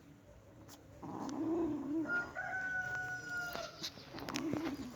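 A rooster crowing once in the background, a long call held at a nearly even pitch for about a second and a half. Lower wavering sounds come just before and after it.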